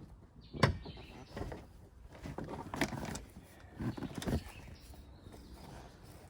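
A few sharp knocks and clatters, the loudest about a second in, with more around the middle: hard objects being handled and struck while parts are pulled from a car.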